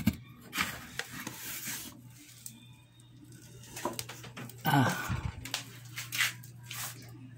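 Handling noises of a power plug and cord being moved to another outlet: scattered clicks and rustling over a steady low electrical hum.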